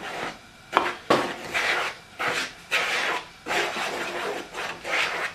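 Spoon stirring heavy cream into flour in a plastic mixing bowl to form dumpling dough: a series of scraping strokes a little over one a second, with a sharp click about a second in.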